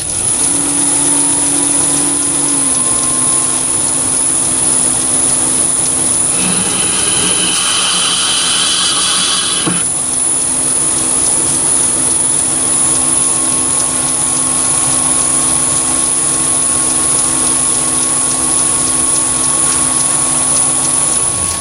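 Chinese mini lathe starting up and coming up to speed, then running steadily with a constant high-pitched whine and motor hum. From about six seconds in, a carbide-insert tool cuts a groove into the end face of a stainless steel bar for about three seconds, ending with a click.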